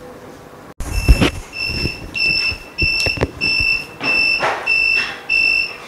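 Mini OCA laminating machine's buzzer beeping repeatedly, a high beep about every 0.6 s, signalling that the automatic laminating cycle has finished. A loud clunk comes just before the beeping starts.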